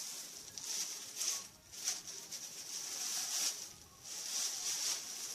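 Crinkling and rustling of packaging as an item is unwrapped, in irregular hissy bursts that come and go.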